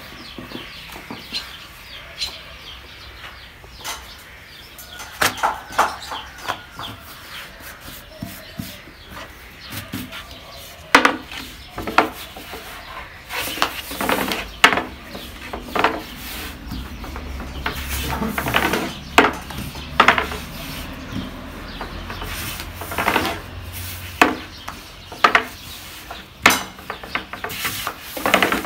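Wooden rolling pin rubbing and knocking on a wooden board as dough is rolled out thin, with irregular sharp knocks that come more often in the second half.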